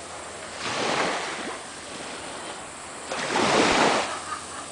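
Small waves washing up on a sandy beach, heard as two swells of surf hiss; the second is louder, about three seconds in.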